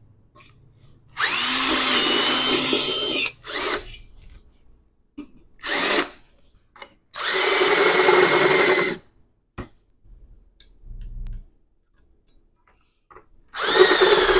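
Electric drill with a 3/16-inch bit enlarging screw holes in an aluminum spacer, run in four spells: about two seconds a second in, a short burst around six seconds, another two seconds around seven to nine seconds, and a short one near the end. Each spell is a high whine of the bit cutting metal.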